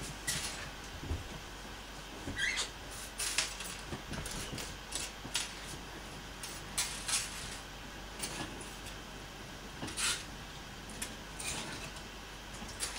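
Small hair clips being picked up and set down on a desktop one at a time: irregular light clicks and taps scattered through, over a low steady background.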